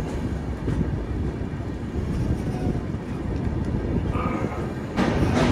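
Passenger train coach rolling slowly through a station, a steady low rumble of wheels and running gear heard from aboard the coach. It grows louder near the end.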